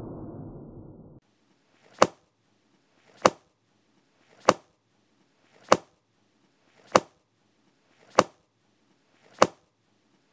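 A book slammed shut again and again, seven sharp slaps about 1.2 seconds apart, each with a short swish just before the hit. Before them, a low ominous drone fades and cuts off about a second in.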